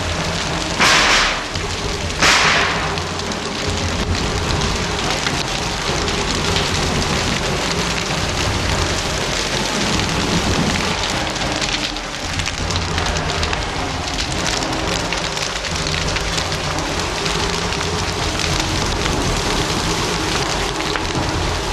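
A burning timber house in a bushfire, with steady dense crackling of the flames throughout. Two brief loud bursts come about one and two seconds in.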